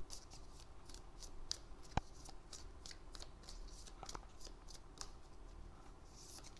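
Tarot deck being shuffled by hand: faint soft flicks and taps of the cards, with one sharper click about two seconds in.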